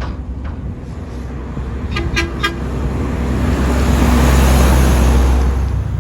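A heavy road vehicle drives past close by. Its low engine rumble and road noise swell to a peak about four seconds in and then ease. About two seconds in there is a brief burst of four or five quick toots.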